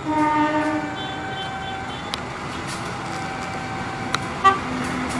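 Horn of a CC203 diesel locomotive giving one blast of about a second as the train nears the level crossing. A steady tone carries on underneath, and there is a sharp click about four and a half seconds in.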